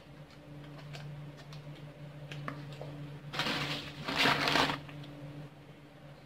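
Clear plastic zip-lock bag rustling and crinkling as hands rummage through it, loudest in two short bursts a little past halfway, over a steady low hum.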